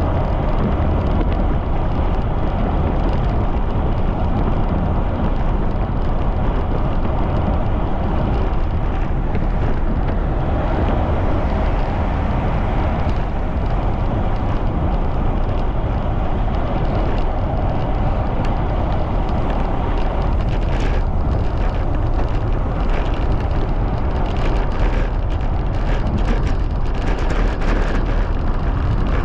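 Strong wind rushing over the microphone of a bicycle riding at speed, a steady loud noise heaviest at the low end. From about two-thirds of the way in, short sharp clicks and rattles come through it.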